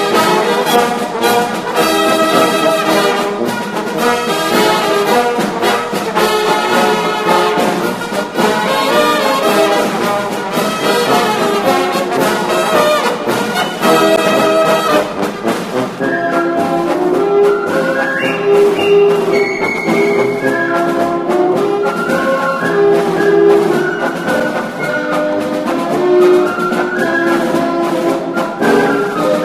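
Background orchestral music led by brass, trombones and trumpets playing held notes, with busier playing in the first half and longer sustained notes from about halfway.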